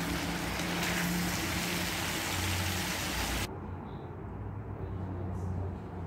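Pork, carrots and potatoes simmering in a pan, a steady hiss that cuts off abruptly about three and a half seconds in, leaving a quieter low hum.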